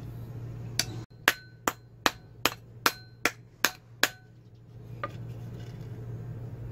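Hammer striking the steel axe head, cut from a circular saw blade, as it sits on its wooden handle: nine quick blows at about two and a half a second, each with a short metallic ring, then one lighter tap about a second later.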